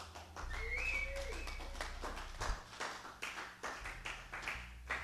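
A series of irregular sharp taps and knocks, with a short tone that glides up and then down about a second in.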